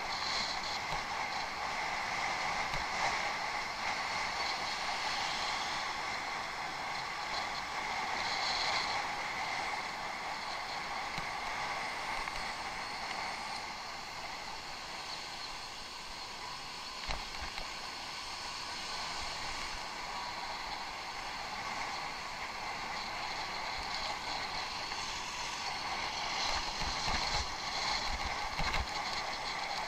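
Steady rushing of a bicycle being ridden off-road, with wind on the microphone and the tyres on the dirt track. A few low thumps come about two-thirds of the way in and again near the end.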